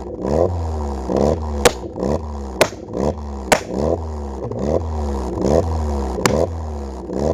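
A 1.4-litre fuel-injected car engine is revved in repeated short blips, its pitch rising and falling about once a second. Several sharp pops come through as the revs drop.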